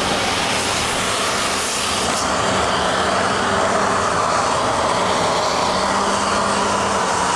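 Jet aircraft engines running steadily: a loud, even rushing noise with a faint low hum under it.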